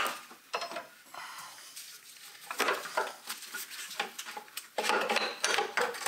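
Metal parts clinking and knocking as a car's engine mount bracket is worked loose and lifted out by hand, in several short clusters of clatter.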